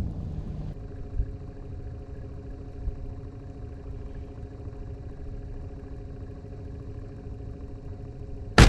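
A boat motor running steadily at trolling speed, a low rumble with a steady hum. Near the end comes a single sharp, loud knock.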